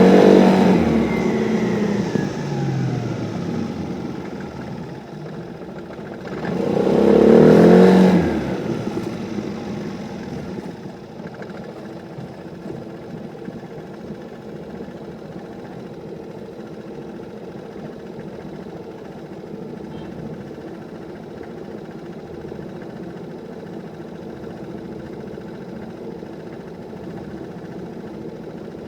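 Vespa scooter engine revved, dropping back, then blipped once more about seven seconds in before settling to a steady idle. The owner reports that the engine knocks when accelerating.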